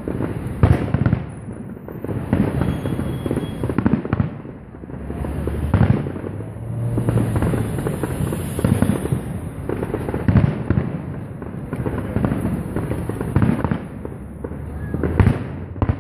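Aerial firework shells bursting in a fast, irregular run of loud bangs, about one a second, with a steady rush of sound between them.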